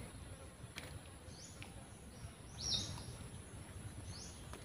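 A bird giving three short, high chirps about a second and a half apart, the middle one loudest, over a steady thin high hum and a few faint clicks.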